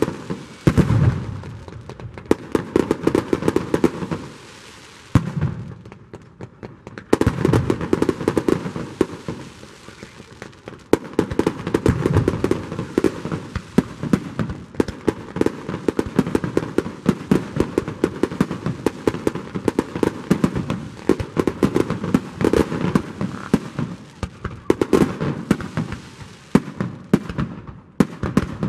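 Fireworks display: aerial shells bursting with deep booms over a dense, continuous run of sharp cracks and crackling, with a brief lull about five seconds in.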